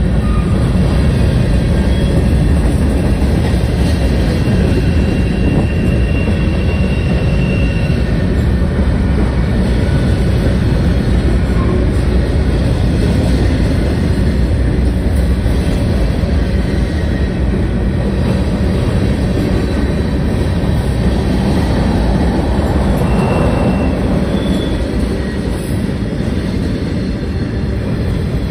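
Freight cars of a manifest train rolling past at steady speed: a continuous rumble and clatter of steel wheels on rail, with a few brief high squeals.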